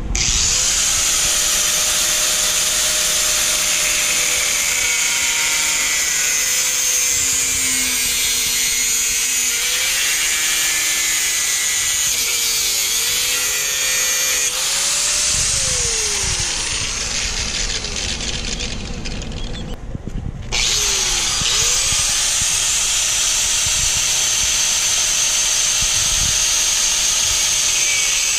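Angle grinder cutting through BMX bike tubing, the motor whine sagging in pitch as the disc bites into the metal, over a hiss of grinding. About twenty seconds in it stops briefly, then spins back up and cuts on.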